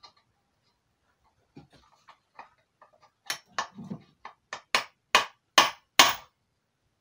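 Hammer blows on a rusty steel exhaust pipe, knocking at a seized part to free it: a few light taps, then about nine sharp metallic strikes, roughly three a second and getting louder, each with a short ring.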